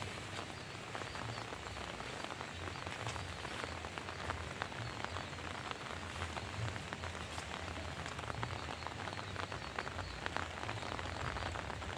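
Steady rain falling, with many separate raindrop hits close by.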